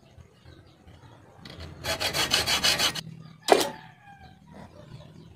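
Hacksaw cutting through a small metal tube in a quick run of rapid, short strokes lasting about a second and a half, followed by a single sharp knock.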